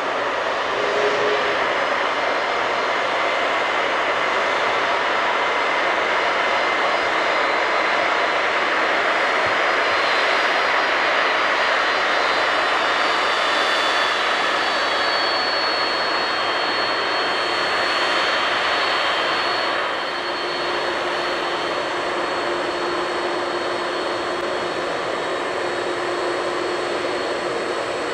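Boeing 767-300ER's twin jet engines running at low power as the airliner taxis close by: a steady rush of engine noise with thin high-pitched whines that drift slightly in pitch. The sound drops a little in level about two-thirds of the way through.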